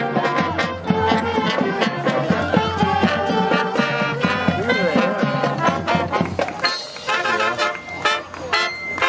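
Marching band playing: brass instruments over a steady drum beat.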